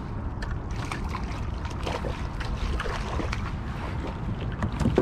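Wind rumbling on the microphone, with water lapping and scattered small splashes and clicks around a kayak.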